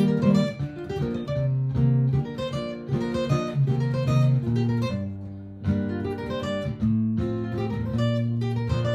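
Martin GPCPA4 acoustic guitar improvising picked lines over a looped guitar part replayed by a looper pedal, with sustained low notes under the quicker notes.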